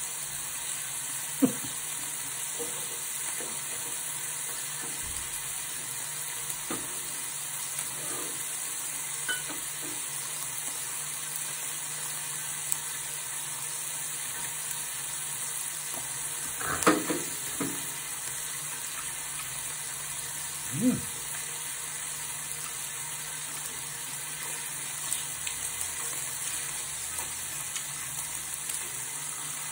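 Marinated beef rib-finger and skirt meat sizzling steadily in a stainless steel pan, stirred with chopsticks. A few short knocks and clicks break through, the loudest about 17 seconds in.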